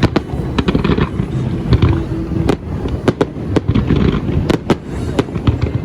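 Fireworks going off: a rapid, irregular run of sharp bangs and cracks.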